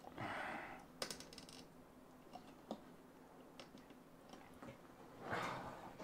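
Faint clicks and plastic handling of an Intel stock CPU cooler's push-pin fasteners being pulled off to be refitted, because a pin would not click in properly. One sharper click about a second in, a few light ticks after, and two short soft rushes of noise, one near the start and one near the end.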